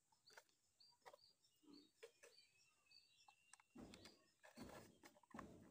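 Faint birds chirping in short high calls, with one longer thin whistle about the middle. In the second half come three soft scuffs of a plastic digital scale being handled and turned over.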